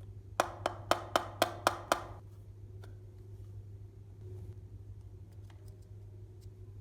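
Seven quick, even taps on a hard object, about four a second, each with a short ring, followed later by a few faint ticks.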